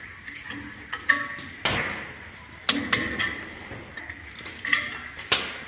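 Several sharp metallic clanks and clinks from tools and pipe parts being handled during boiler repair work, with three louder knocks spread across the few seconds.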